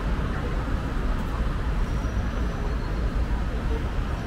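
Steady road-traffic noise of cars driving past on a busy city street, an even, unbroken din strongest in the low range.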